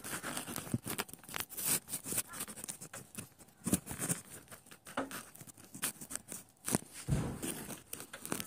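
Footsteps crunching and scraping over broken concrete rubble and dirt, in irregular clicks and crunches, with a low thud about seven seconds in.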